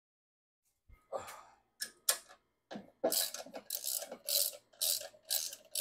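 Hand-tool work on the engine parts: a few scattered scrapes and knocks, then from about three seconds in a steady run of short scraping strokes, about two a second.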